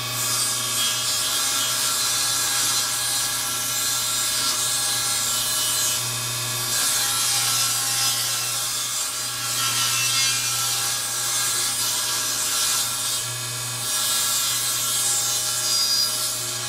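Table saw ripping a seasoned salvaged 2x4 in a shallow pass to take out twist. The motor runs with a steady whine while the blade's cutting noise through the wood swells and eases as the board is fed along the fence.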